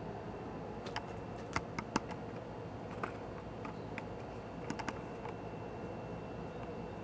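Scattered light clicks and taps from hands handling parts inside an opened welder, bunched about a second in and again near five seconds, over a steady low background hiss.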